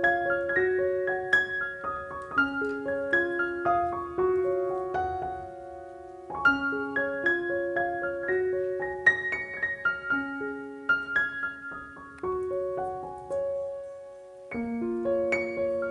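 Background music: a slow, gentle solo piano melody with sustained notes.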